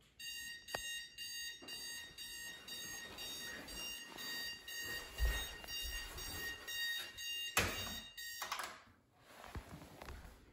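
Digital bedside alarm clock beeping in a rapid, repeating high-pitched pattern, with rustling of movement beneath it. A knock comes about seven and a half seconds in, and the beeping cuts off suddenly about a second later.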